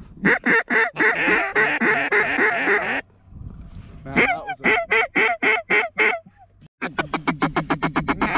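Duck and goose calls blown in fast, evenly paced strings of quacks and honks to work incoming ducks. A dense jumble of calling for the first three seconds, a short lull, then a string of quacks at about four a second, and a faster string near the end.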